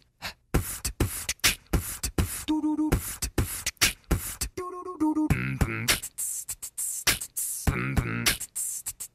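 Beatboxing: a fast rhythm of sharp clicks and deep kick-like hits, broken by short pitched vocal notes a little past halfway and near the end.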